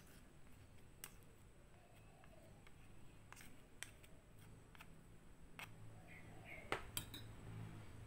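Metal spoon scraping and clinking lightly against a small ceramic bowl and a glass mug as honey is spooned out, a handful of faint scattered clicks, with two louder clinks about a second apart near the end as the spoon is set in the mug.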